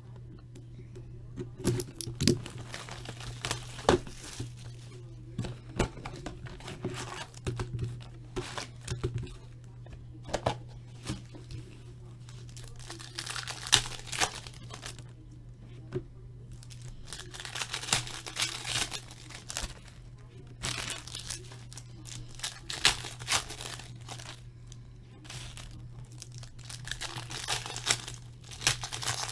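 Foil trading-card packs crinkling and being torn open by hand, in irregular bursts of rustling and crackling, over a steady low hum.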